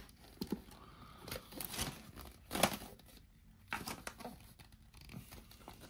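Hands handling a plastic Premier Ball deck holder and its cardboard packaging while trying to work out how it opens: scattered clicks, rubs and rustles, the loudest a sharp click about two and a half seconds in.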